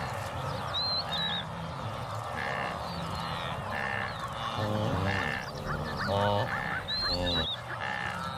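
Wildebeest calling: three short, nasal, honking calls in the second half, the contact calls by which a calf and its mother find each other. Birds twitter in the background.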